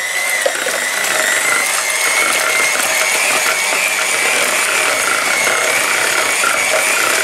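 Handheld electric mixer running steadily with a high whine, its beaters whisking pancake batter in a plastic jug.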